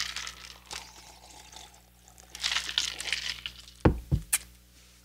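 Drinking from a cup, with sips and liquid sounds in the mouth, then two low thumps about four seconds in as the cup is set down.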